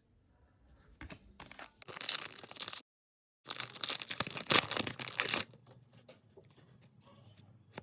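Trading card pack wrapper being torn open and crinkled, in two noisy stretches split by a brief cut to dead silence, with faint rustling after.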